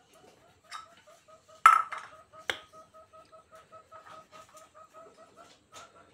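A chicken clucking in a steady rapid series, about four short clucks a second. Sharp metal clanks of a basin or pot cut in, the loudest about a second and a half in and another a second later.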